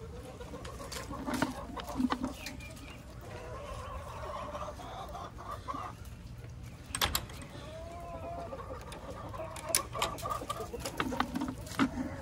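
Domestic hens clucking and calling on and off, in wavering, drawn-out notes. A few sharp clicks or knocks come through at intervals.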